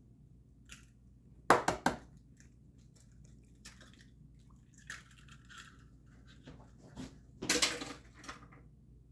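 Two eggs cracked one after another against the edge of a bowl: a quick cluster of sharp taps about one and a half seconds in, and another near the end, with faint handling noise between.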